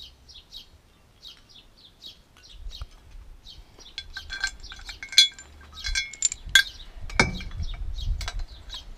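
Steel bolts and square-tube steel jack brackets clinking together as they are handled and fitted to a camper jack. Several ringing metal clinks come from about four seconds in, and a heavier metal knock a little after seven seconds.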